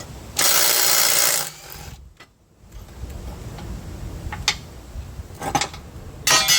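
Impact wrench hammering in a burst of about a second to break loose the mower blade's nut on the spindle, then a second short burst near the end, with a few light metal clinks in between.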